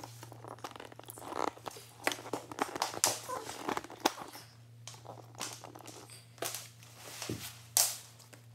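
Cardboard shipping box being handled: irregular scrapes, rustles and light taps of cardboard and packing tape, the sharpest a few seconds in and again near the end, over a low steady hum.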